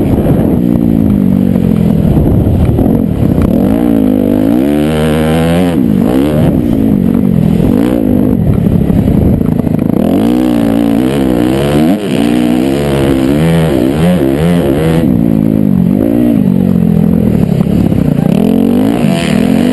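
Motocross dirt bike engine revving up and down again and again as the bike is ridden hard, heard close up from the rider's helmet.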